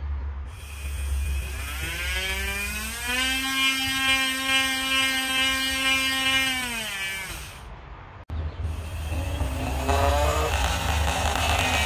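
Pink 15,000 RPM electric nail drill handpiece spinning up as its speed knob is turned: a motor whine that rises in pitch, holds steady for a few seconds, then winds down and stops; it is quite loud for a nail drill. After a sudden break the handpiece runs again resting on a picture frame, shaking hard and buzzing against it.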